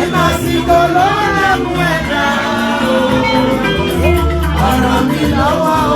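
Worship music: a group singing over a band with a strong bass line and light percussion.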